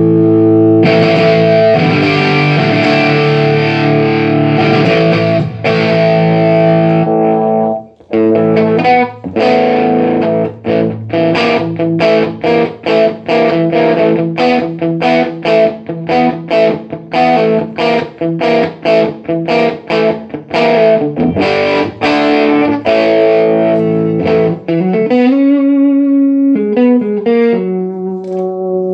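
Electric guitar played through a Line 6 Flextone III modelling amp on a sound test after its pots and switches were replaced. A distorted chord rings for about eight seconds and cuts off, then a long run of quick picked chords follows, and near the end a few cleaner notes slide in pitch.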